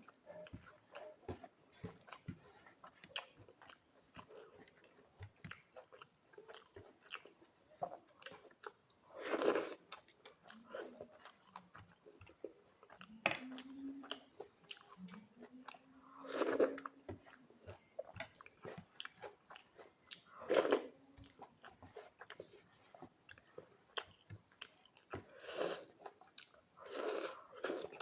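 Close-miked chewing and lip-smacking of a person eating a meal of rice and greens, a steady run of small wet clicks broken by louder mouth sounds every few seconds.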